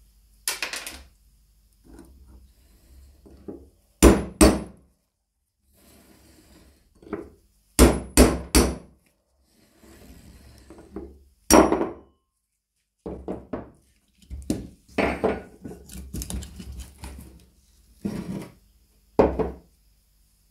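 Irregular sharp knocks and clanks of metal parts and hand tools being struck and handled, some single and some in quick runs of two or three.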